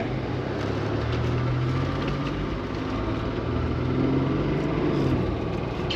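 Car driving on the road, heard from inside the cabin: a steady low engine hum with tyre and road noise, the engine note swelling a little about four seconds in.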